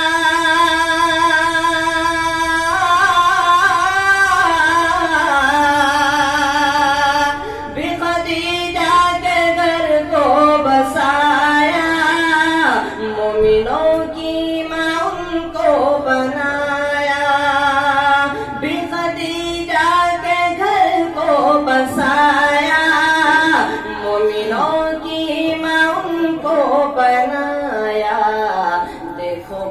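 A solo voice singing an Urdu naat (devotional poem in praise of the Prophet) unaccompanied into a microphone, drawing out the words in long held notes with a wavering vibrato and sliding ornaments.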